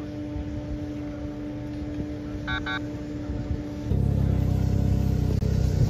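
Snowmobile engines running steadily, with two short beeps about two and a half seconds in. Near the end a closer snowmobile engine starts up much louder with a low rumble, the tracked rescue snowmobile that tows the stretcher sled.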